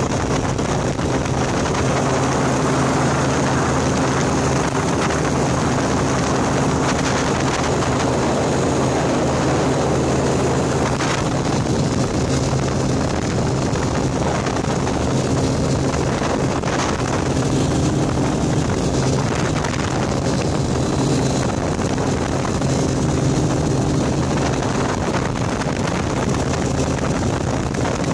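Small aircraft's engine running at a steady drone in flight, with wind rushing over the microphone.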